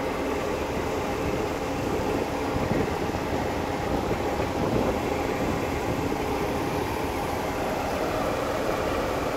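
Heavy diesel machinery engine idling steadily, an even, unchanging hum.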